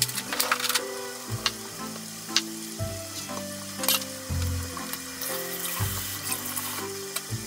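Food sizzling steadily in a frying pan as pieces cook down in their sauce, with a few sharp light knocks as tomatoes are set down and moved on a wooden cutting board.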